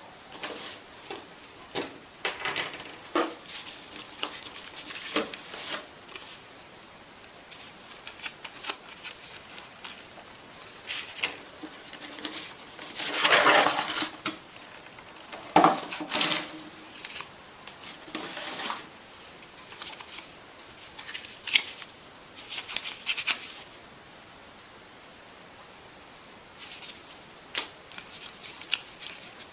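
Irregular handling noise: scattered clicks, taps and short rustles, with a longer, louder rustle about 13 seconds in.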